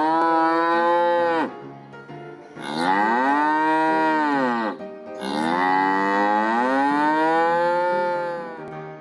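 Cow mooing three times in long, drawn-out calls, each sagging in pitch at its end.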